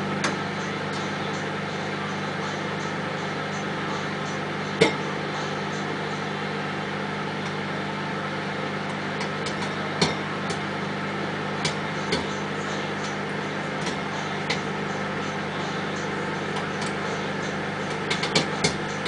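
Microwave oven running with a steady low hum while popcorn kernels in a bowl covered with plastic wrap pop now and then, with a few quick pops close together near the end.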